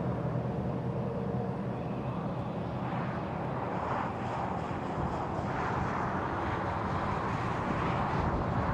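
Steady road and wind noise from a car driving along the freeway.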